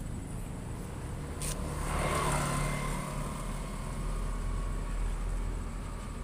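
A motor scooter passing close by about two seconds in, its engine and tyre noise swelling and fading, over the low steady rumble of a container truck's diesel engine approaching.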